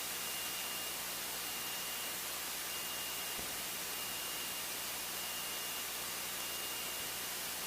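Steady electronic hiss, like static on an open audio line, with a faint high whine held throughout.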